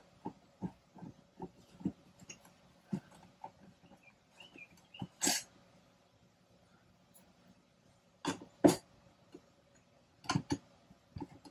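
A hand screwdriver backing screws out of a ceiling speaker's trim ring: a run of small clicks and scrapes, steady at first and again near the end. A few louder, sharp breathy bursts stand out, once about five seconds in and twice a few seconds later.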